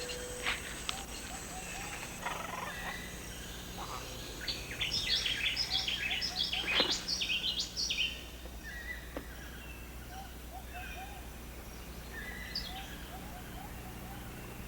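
Tropical rain forest ambience with scattered bird calls, rising to a busy flurry of high chirping notes from about four and a half to eight seconds in, with soft runs of short lower calls before and after.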